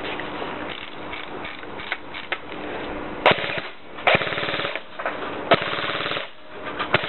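Jing Gong G36C electric airsoft rifle firing: a single sharp shot about three seconds in, then two short full-auto bursts of rapid, evenly spaced shots, each under a second long.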